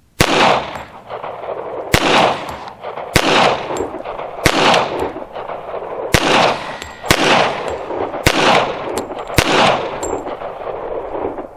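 Hi-Point .45 ACP pistol fired eight times in slow fire, about one to one and a half seconds between shots, with PMC Bronze 230-grain full metal jacket rounds. Each shot is a sharp crack that trails off in echo.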